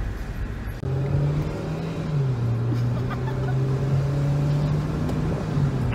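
Car engine running under way, heard from inside the cabin over road noise: a steady low drone whose pitch steps down a little after two seconds in and then holds.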